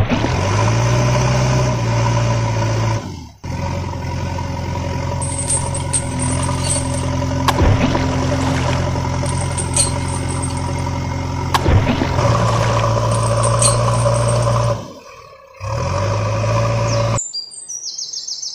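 Heavy machinery diesel engine running steadily at idle, briefly cutting out twice. Near the end it gives way to birds chirping.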